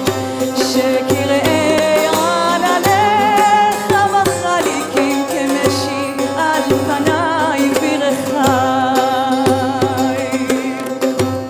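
Live music: a woman singing a long, wavering melody, accompanied by a saz and hand percussion struck in a steady rhythm.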